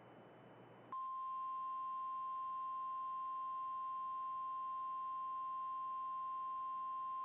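Emergency alert attention tone: after about a second of faint hiss, a single steady, unchanging high tone comes on and holds.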